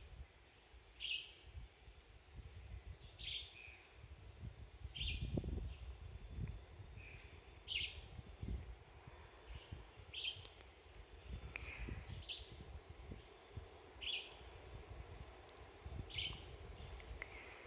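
Rain forest ambience: a steady high-pitched insect drone, with a short, high, falling call repeated about every two seconds, over a faint low rumble.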